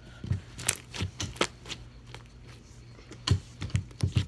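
Slime being squeezed and worked by hand, trapped air bubbles popping in a quick irregular series of sharp clicks and pops, the loudest about three and four seconds in.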